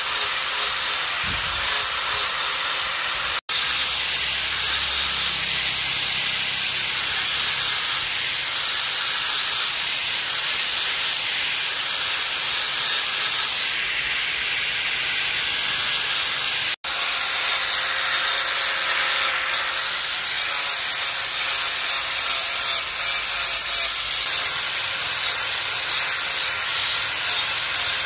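Electric angle grinder with a sanding disc running against a carved rosewood gourd: a steady, even sanding noise of abrasive on wood, broken twice by a momentary dropout.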